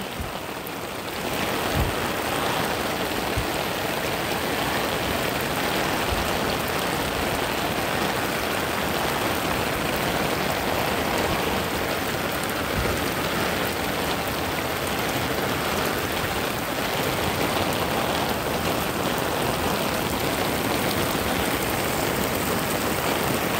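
Heavy rain falling steadily on a wet street and on an umbrella held overhead: a dense, even hiss that does not let up.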